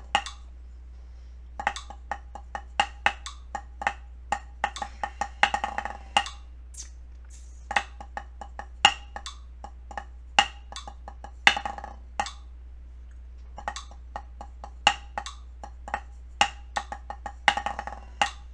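Wooden drumsticks striking a drum practice pad, playing a slowed-down snare passage with triplets at about 50 beats per minute: quick clusters of strokes and single taps separated by short gaps.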